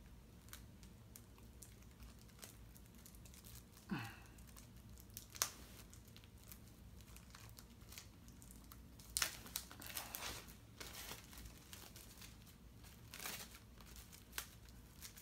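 Plastic shrink wrap being picked at and peeled off a Blu-ray case, crinkling and tearing on and off, busiest around nine to eleven seconds in.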